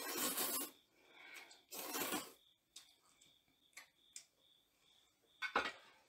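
Instant ramen noodles being slurped, a loud slurp at the start and another about two seconds in, with a few light clicks of chopsticks or utensils in between and a short noisy sound near the end.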